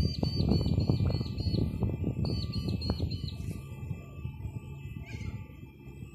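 A bird singing a quick run of repeated high hooked notes, twice, over a low rumble that fades away.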